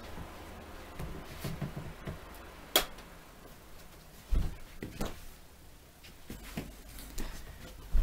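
A Midea FS4040 floor fan running with a faint, steady low hum, under a few sharp knocks and clicks of someone moving about and handling things. The loudest knocks come about three and five seconds in.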